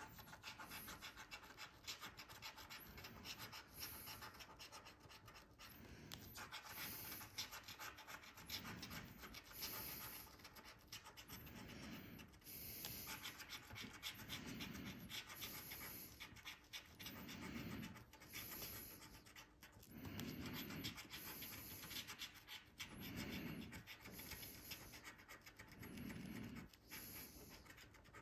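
Faint scratching of a paper scratch-off lottery ticket: the latex coating is scraped away in quick, repeated strokes.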